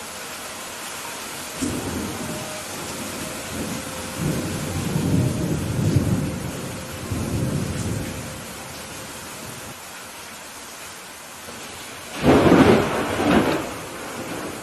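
Steady heavy rain with a thunderstorm: thunder rumbles for several seconds early on, then a loud, sharp clap of thunder cracks about twelve seconds in.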